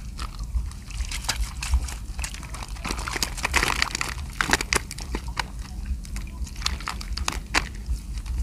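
Water sloshing and splashing with many sharp slaps and clicks, as fish are caught and pulled from the water of a fish corral.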